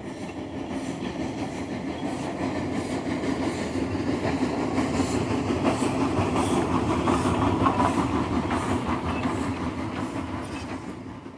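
Train running on rails with a faint regular beat, growing louder to a peak about two-thirds of the way through, then fading out at the end.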